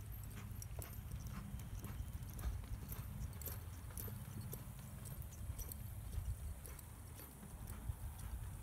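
Hoofbeats of a palomino horse loping on soft arena dirt, irregular short thuds and clicks over a steady low rumble.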